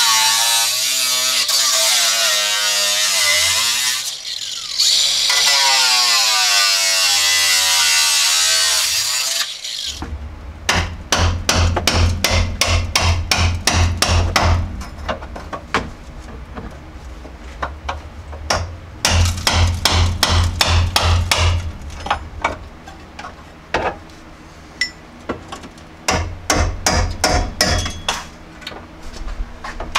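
Angle grinder with a wire cup brush scouring rust off a steel frame rail: a loud hiss with a whine that wavers in pitch as the brush bears on the metal. After about ten seconds this gives way to rapid, rattling knocks in bursts of a few seconds as a power tool works against the metal inside the rail.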